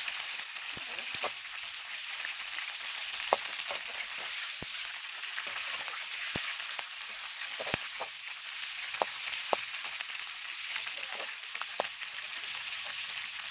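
Food sizzling in hot cooking oil: a steady hiss with a dozen or so sharp pops and crackles scattered through it.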